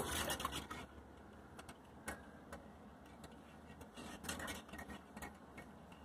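Pedestal sump pump motor dying away within the first second as the float drops and the switch shuts it off, then faint scattered ticks in the pumped-down pit.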